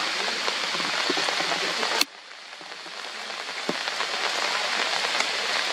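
Hard rain falling through forest foliage: a steady hiss with scattered pattering drops. About two seconds in it cuts off suddenly, then builds back up over the next couple of seconds.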